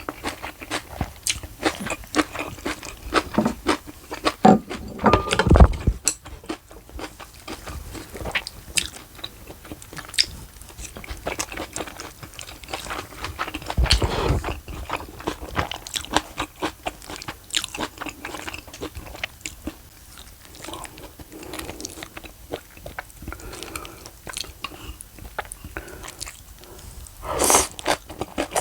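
Close-miked chewing and crunching of spicy steamed monkfish and fresh geotjeori kimchi, with many small irregular mouth clicks. There are a few louder sounds about five, fourteen and twenty-seven seconds in.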